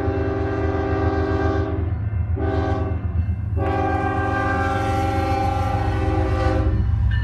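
BNSF locomotive air horn sounding the end of the standard grade-crossing signal: a long blast ending about two seconds in, a short blast, then a final long blast of about three seconds, all in one chord. A steady low rumble runs underneath.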